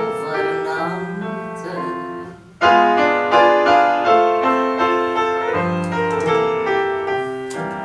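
Piano accompaniment under a woman's voice holding the last note of a sung line. About two and a half seconds in, a solo piano interlude enters with a loud chord and runs on as a series of struck, decaying notes and chords.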